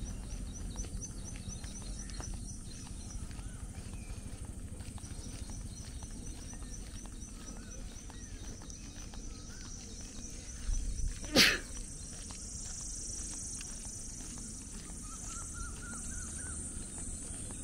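Open-air roadside ambience: birds chirping, with a rapid high ticking call repeating for the first half, over a low steady rumble and faint footsteps. About eleven seconds in come a few soft knocks and then one sharp click, after which a steady high-pitched hiss sets in.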